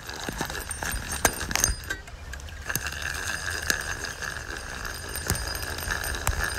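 Fishing reel being cranked to bring in a hooked bluegill: a steady whirring with scattered sharp clicks from the reel's gears.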